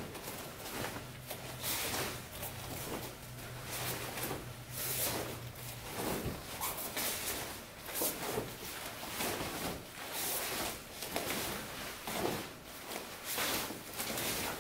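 Swishes and light thuds of two people performing a taekwondo form: dobok sleeves snapping with each punch and block, and bare feet stepping on foam mats, about one movement a second.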